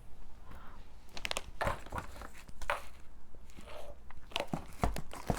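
Packaging crinkling and rustling in the hands in short scattered bursts, with a soft thump a little before the end.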